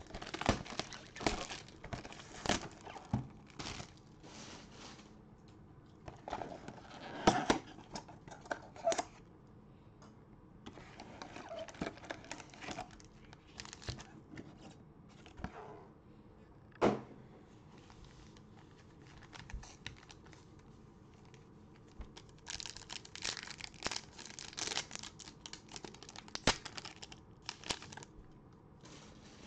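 Plastic wrapping and foil trading-card pack wrappers crinkling and tearing, with scattered knocks of a cardboard box being handled. There is one sharp knock about halfway through, and a dense run of crinkling near the end as a pack is torn open.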